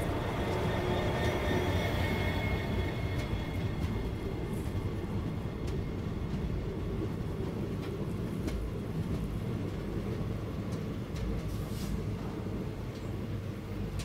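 Indian Railways passenger coach of the Koyna Express running along the track, heard from its open doorway: a steady rumble of wheels on rail with occasional sharp clicks and a faint high whine in the first few seconds.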